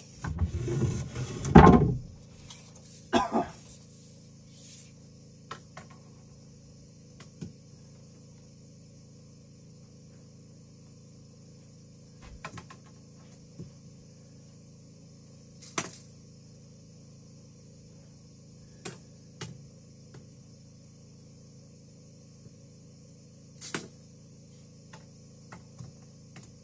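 Knocks and clunks of building work: a louder clatter in the first two seconds, a sharp knock about three seconds in, then scattered light knocks and clicks over a faint steady hum.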